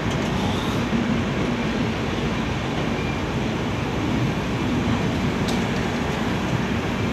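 LHB passenger coaches of an express train rolling past a platform, a steady rumble of wheels on rails.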